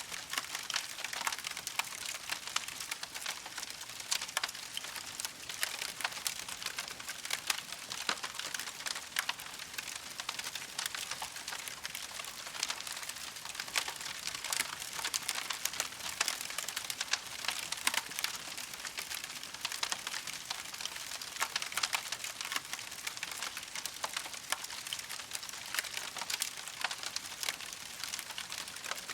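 Wood campfire crackling: a dense, continual run of small sharp pops and snaps over a steady hiss of burning.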